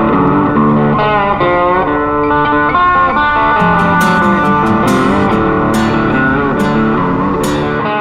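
Background music: a guitar-led instrumental, its notes changing in steps, with sharp ticks in the second half.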